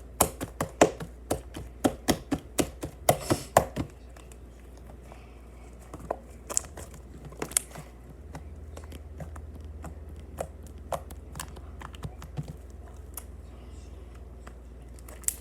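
Slime being kneaded and squished by hand to work in food colouring, giving off rapid sharp clicks and pops for the first four seconds, then only scattered clicks.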